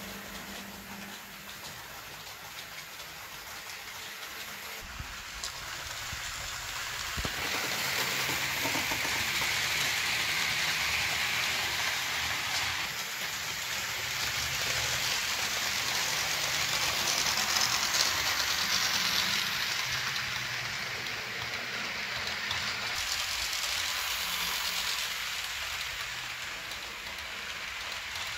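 Jouef model train with a 231 K steam locomotive model running on the layout's track: a steady whirring, rattling hiss of motor and wheels on rails. It grows louder about seven seconds in as the train nears, is loudest in the middle, and fades toward the end.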